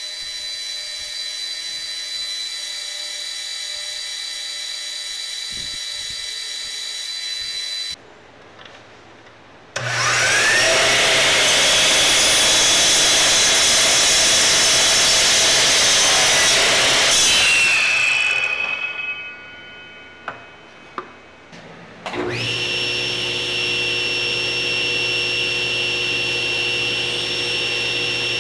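A belt grinder runs with a steady whine. A compound miter saw then spins up with a rising whine and cuts loudly through a block of wood for several seconds before winding down, followed by a few clicks. A table saw starts and runs steadily with a high whine as a wooden block is pushed through the blade.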